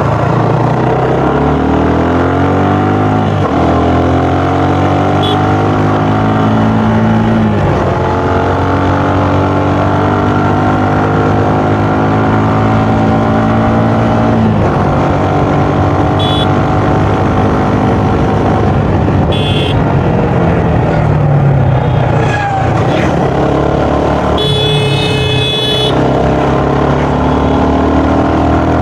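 Suzuki Gixxer's single-cylinder engine and stock exhaust pulling through the gears while riding. The pitch climbs in each gear and drops sharply at each upshift, three times in the first half, then runs steadier with some easing off. A few short horn beeps sound, the longest near the end.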